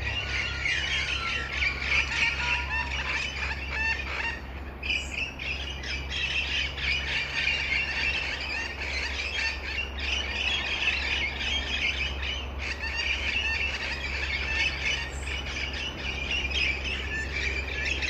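A flock of black currawongs (Tasmanian currawongs) calling, many overlapping calls at once in a continuous chorus, over a steady low hum.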